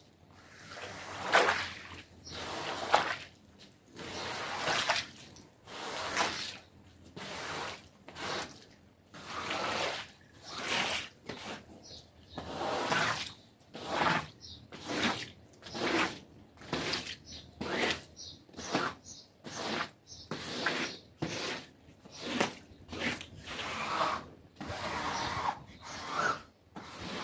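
Wet carpet being worked by hand with repeated wet strokes, about one a second and slightly quicker later, each a short swish of water being pushed through the pile.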